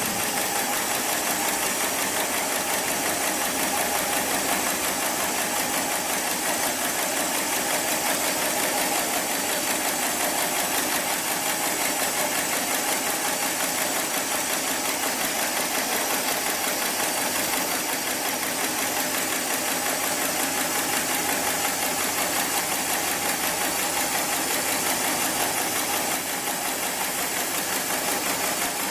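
Heavy-duty programmable pattern sewing machine stitching thick polyester or nylon sling webbing, running steadily with a fast, even rhythm of needle strokes.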